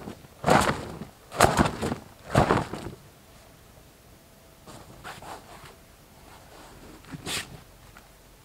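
A blanket being shaken out: three loud flaps about a second apart, then softer rustling of the cloth and one more flap near the end.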